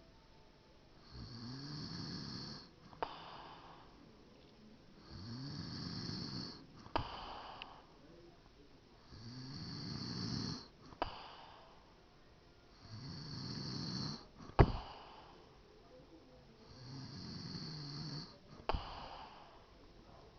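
A man snoring in his sleep: five long snores about four seconds apart, each followed shortly by a sharp click, the loudest click about two-thirds of the way through.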